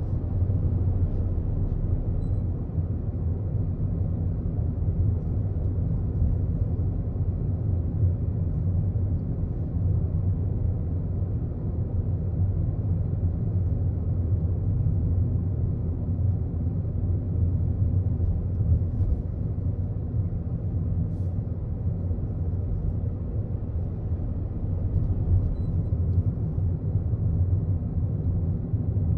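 Steady low rumble of a car driving at city speed, with engine and road noise.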